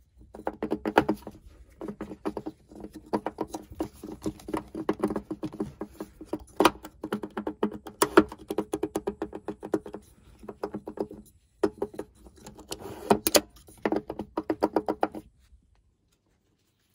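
Rapid, irregular rattling knocks from loose plastic interior trim in a Toyota RAV4, clicking many times a second with a hollow ring. It comes in bursts, with a short break near the middle, and stops shortly before the end.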